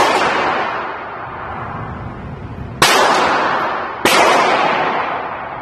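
Two gunshots about a second apart, each ringing on in the hard echo of an indoor shooting range. The fading echo of an earlier shot is heard at the start.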